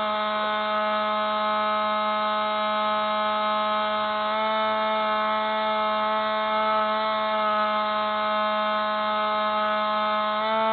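Electric motor and propeller of a Spy Hawk RC camera plane, heard through its onboard camera: a steady buzzing whine made of many tones. The pitch steps slightly about four seconds in and again near the end.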